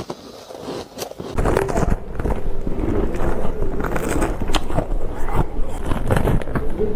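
A person chewing ice close to the microphone. A few faint crackles come first, then, from about a second in, a steady loud crunching packed with sharp cracks.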